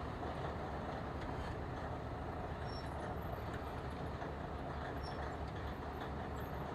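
Diesel locomotive engine running steadily, a low even rumble.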